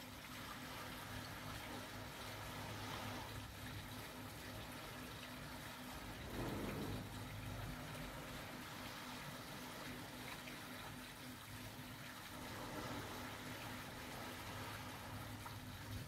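Small waves washing onto a sandy beach, a soft, steady wash of surf with one louder swell about six and a half seconds in.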